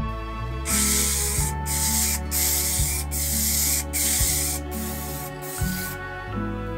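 Aerosol can of Spray.Bike Frame Builder's Transparent Finish acrylic clear coat spraying in six short hissing blasts onto a bike frame, with brief pauses between them.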